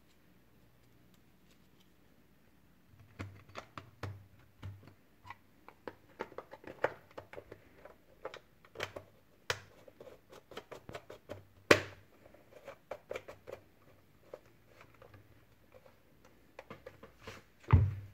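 Irregular plastic clicks, taps and knocks as a chainsaw's air filter and plastic top cover are fitted and pressed into place by hand. There is a sharp loud knock about midway and a heavier thump near the end.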